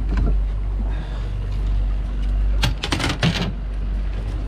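Boat engine running steadily under wind on the microphone while a hooked salmon is reeled in, with a quick run of sharp clicks about three seconds in.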